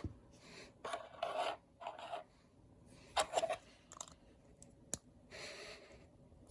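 Small plastic LEGO pieces being handled and scraped against each other, with a few light clicks as they are pressed together and one sharper click about five seconds in.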